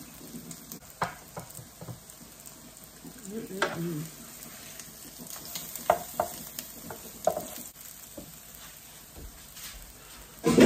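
Cod fish cakes sizzling in oil in an electric skillet, with a wooden spatula tapping and scraping on the pan as the patties are turned. A brief loud sound comes right at the end.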